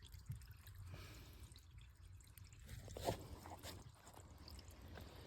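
Water faintly draining through a kitchen drain line, with a few drips, the clearest about three seconds in.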